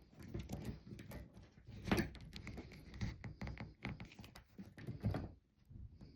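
Handling noise from hands working on wiring and fittings: irregular clicks, knocks and rustling, with one louder knock about two seconds in, dying away near the end.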